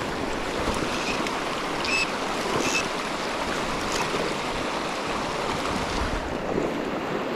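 Shallow, fast river riffle rushing over rocks: a steady, even wash of moving water.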